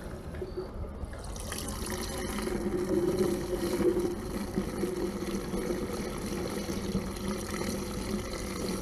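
Diesel fuel rushing out of a hose into a tracked loader's fuel tank, fed by a hand-cranked Fill-Rite rotary vane pump. The flow builds about a second and a half in, is strongest a couple of seconds later, and then runs on steadily.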